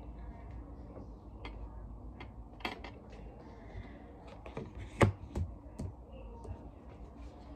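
Tarot cards being handled and laid down on a glass tabletop: scattered light clicks and taps, the sharpest about five seconds in.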